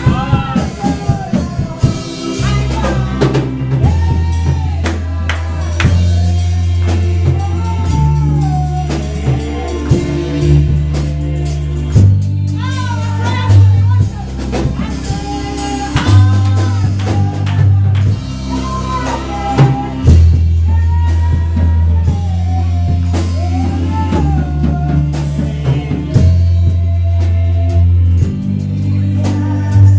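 Gospel worship music: a singer carrying a melody over a drum kit and long, deep bass notes.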